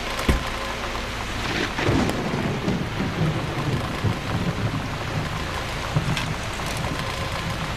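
Steady rain with a low roll of thunder starting about a second and a half in and rumbling on for several seconds; a short sharp thump just after the start.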